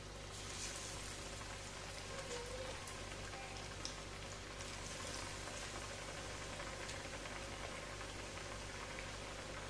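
Hot oil sizzling steadily with fine crackles around kuttu-flour and Maggi pakodas deep-frying in a pan.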